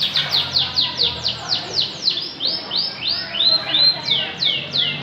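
Canary singing: a fast trill of repeated falling whistled notes that slows, then a few rising notes a little past the middle, then falling notes again.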